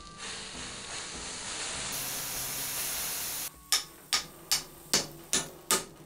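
A steady hiss for about three and a half seconds, then six hand-hammer blows on a glowing Damascus steel billet lying on the anvil, about two and a half a second, as the freshly folded billet is hammered closed.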